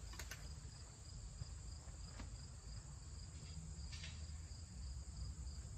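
Quiet background with a steady, high, pulsing chirring of insects, and a few faint clicks from handling the opened hub motor.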